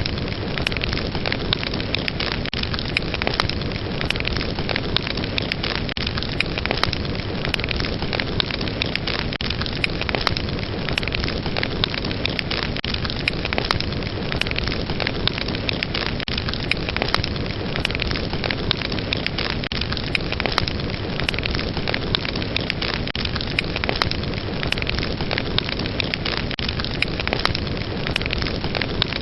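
Fireplace fire burning steadily, a dense hiss and rumble of flames with many sharp wood crackles and pops at irregular intervals.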